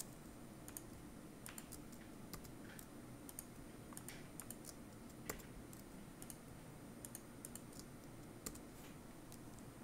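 Faint, irregular clicks of a computer mouse and keyboard: mouse clicks selecting vertices and key presses.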